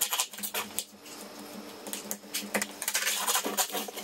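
Heating cable being pressed into the studs of a Schluter Ditra Heat membrane: a run of light, irregular plastic clicks and taps.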